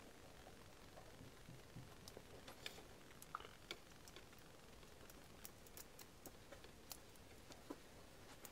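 Very faint, scattered small metal clicks and ticks, about a dozen, as a screwdriver turns a slotted screw deep in a jig saw's metal housing.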